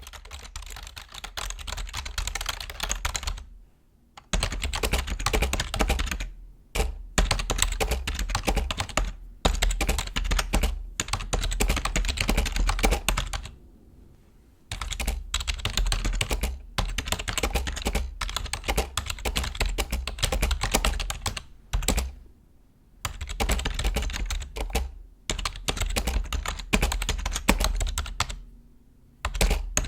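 Typing on a computer keyboard: runs of rapid key clicks broken by short pauses, with a longer lull about halfway through.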